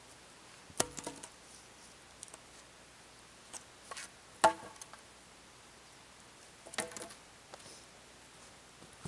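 Wooden shelter poles knocking together as the pole frame is taken down: three sharp wooden knocks with a short ring, about a second in, in the middle (the loudest), and again about two seconds later.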